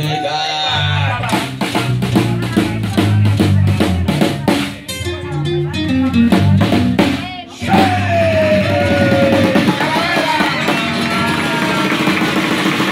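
Acoustic rockabilly band playing: slapped upright bass, snare drum and acoustic guitar. A run of steady snare hits is followed by a bass line stepping down, a short break, a voice sliding down in pitch, then a sustained finish with the crowd clapping and shouting near the end.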